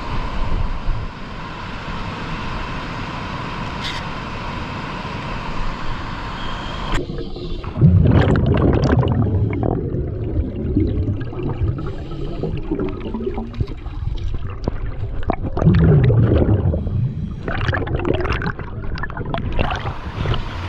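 Underwater gurgling from a scuba diver's exhaled bubbles, loud surges about 8 and 16 seconds in. A steady rushing hiss with a faint held tone fills the first seven seconds, then cuts off suddenly.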